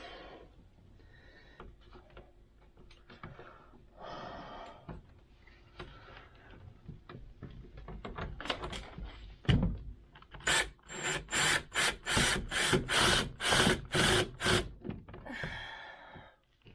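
A screw being driven by hand into wood to fasten a door latch's striker plate: faint rubbing and handling at first, a single knock, then a run of about ten rasping strokes, roughly two and a half a second, as the screw turns.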